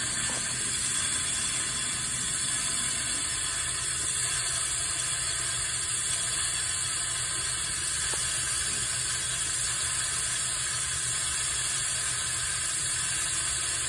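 Shop compressed air rushing through a venturi-type cooling-system vacuum refill tool, a steady hiss as it pulls a vacuum on the engine's cooling system.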